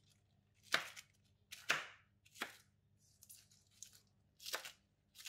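Kitchen knife chopping iceberg lettuce leaves on a wooden cutting board. There are four separate cuts: three about a second apart, then a pause and one more near the end, with a couple of faint taps in between.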